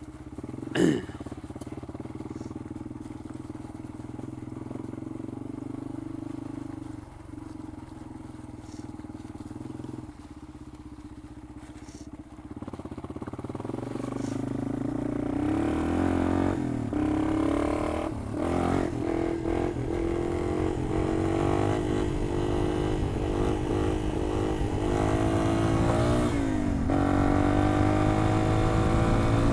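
Yamaha XT225's single-cylinder four-stroke engine running steadily at low speed, then from about halfway getting louder and revving up and down repeatedly as the bike accelerates through the gears.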